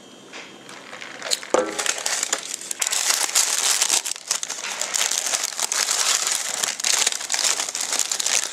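Paper food wrapping crinkled and rustled by hand, a dense crackling that starts about a second in and carries on.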